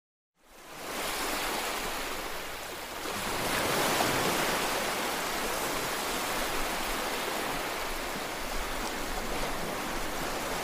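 Ocean surf washing onto a beach, a steady rushing that fades in after a moment of silence, with one larger wave swelling about four seconds in.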